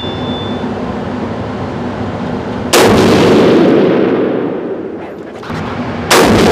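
Two rifle shots from a Seekins Havak PH2 bolt-action rifle chambered in .300 PRC, about three and a half seconds apart. Each shot rings out in a long echo that dies away slowly inside the indoor range.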